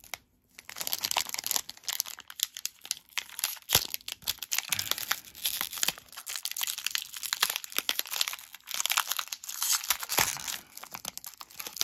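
Foil wrapper of a Pokémon trading-card booster pack being torn open and worked by hand: irregular crinkling and crackling of the foil, with one sharp click about four seconds in.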